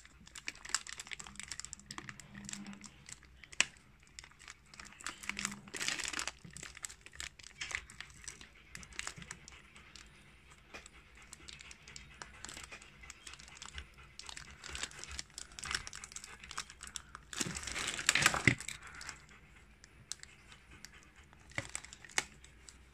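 Clear plastic packaging bag crinkling in irregular bursts as it is handled and opened, loudest about three-quarters of the way through. There is one sharp click a few seconds in.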